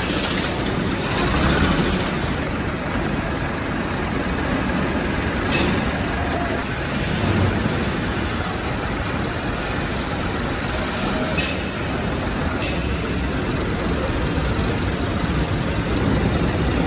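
Steady factory machinery noise, broken by three short, sharp hisses: one about a third of the way in and two close together about two-thirds of the way in.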